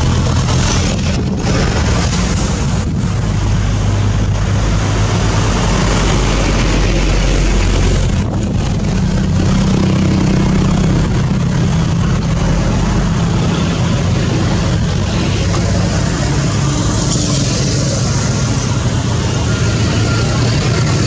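Steady roadside traffic noise: a Hino dump truck's diesel engine running close by, along with passing motorcycles and cars.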